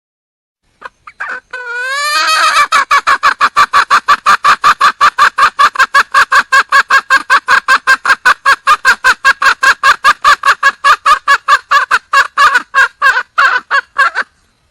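Wild junglefowl hen (red junglefowl) calling: a few short notes and wavering calls, then a long, loud, rapid run of clucks at about five a second, which stops abruptly. It is the hen's call to attract a male.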